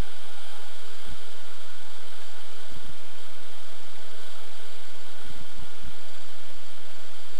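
V-tail octocopter's eight motors and propellers hovering: a steady whirring hiss with several fixed whining tones, holding the same pitch. A few brief low thumps come through about a second in, near three seconds, and twice more past five seconds.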